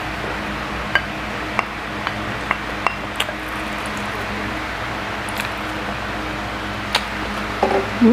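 A spoon knocking and scraping against a ceramic bowl while eating, a handful of light separate clinks, some with a short ring, over a steady fan-like hum.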